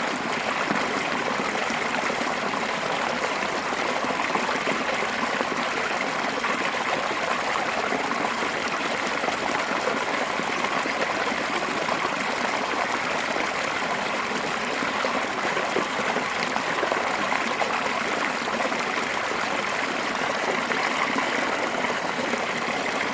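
A fast-flowing mountain stream, its water spilling in a curve over rocks: a steady, even rush of water.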